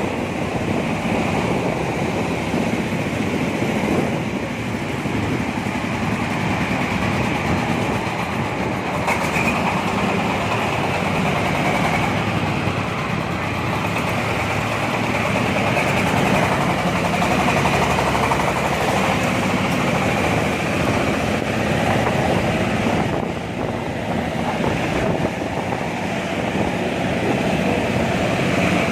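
Corn sheller machine running steadily on its 26 HP Jiangfa diesel engine: a loud, continuous mechanical din with a constant engine drone.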